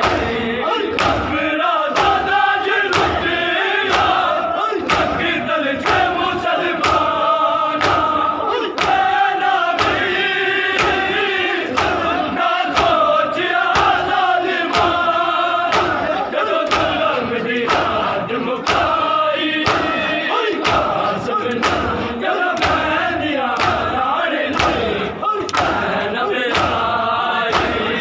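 A large crowd of men chanting a noha together while beating their chests in matam, the hand-on-chest slaps landing in a steady rhythm of roughly two a second.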